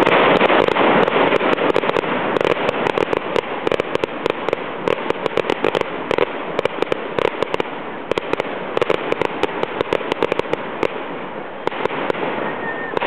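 Fireworks going off: a loud rush of noise at the start, then a dense run of rapid crackling pops for several seconds that thins out near the end.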